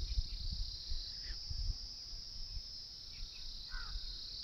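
Steady, high-pitched chirring of an insect chorus, unbroken throughout, over a low rumble.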